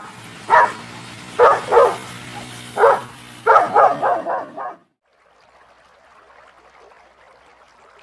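A dog barking: about eight short barks in the first five seconds, the last few coming quickly one after another. After that there is only a faint steady hiss.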